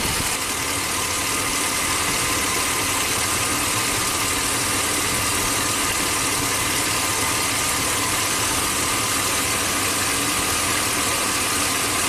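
V8 gasoline engine of a 2005 Chevy Silverado 2500HD idling steadily under the open hood, running slightly rough from a cylinder-two misfire. Cylinder three's injector is being unplugged for a drop test, and the idle shows little change.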